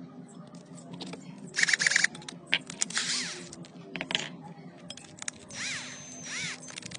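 Background music over clicks and rattles from a cordless drill's keyless chuck being opened, its drill bit pulled out and a screw pushed in, with a short loud rattling burst about one and a half seconds in.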